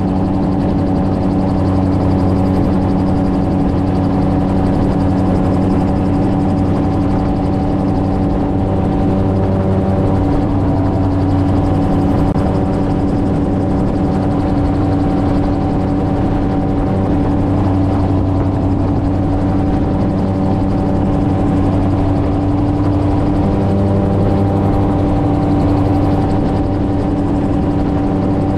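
MTO Sport open-cockpit gyrocopter in steady cruising flight: engine and pusher propeller droning at a constant pitch, with rushing air noise.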